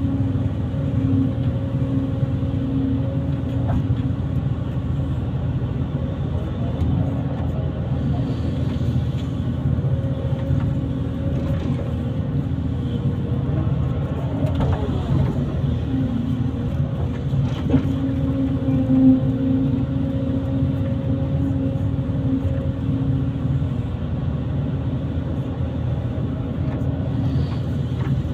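Kobelco SK140 hydraulic excavator's diesel engine running steadily while working, with its pitch briefly wavering about halfway through.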